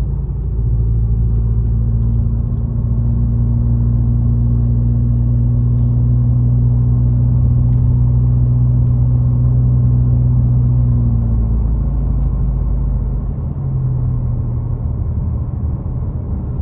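A car driving, heard from inside: a steady low road rumble and engine hum. The hum holds steady for about eleven seconds, then eases and changes pitch.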